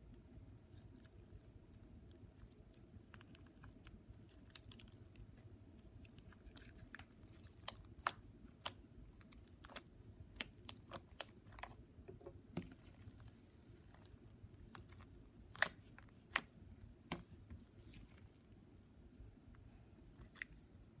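Slime being poked and squeezed by hand, giving irregular sticky clicks and small pops.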